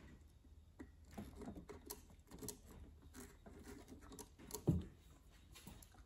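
Faint scattered clicks and rustling from hands handling hoses and parts in a car's engine bay, with one louder knock about three-quarters of the way through.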